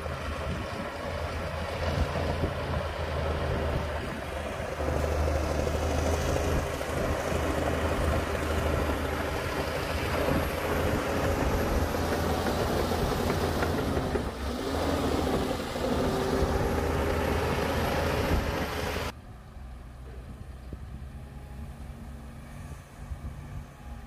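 Bulldozer's diesel engine running hard as it pushes soil, with a steady low drone. About nineteen seconds in the sound drops suddenly to a quieter running engine.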